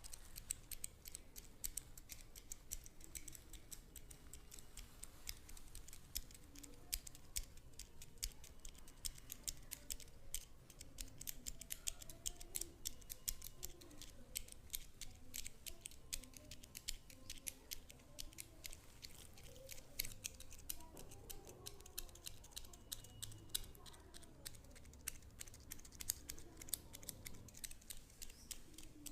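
Barber's hand tool clicking rapidly and crisply, many light clicks a second, with faint music underneath.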